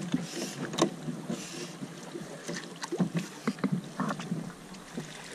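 Water lapping and splashing against the side of a fishing boat's hull, with scattered short knocks and clicks from rods and reels being handled.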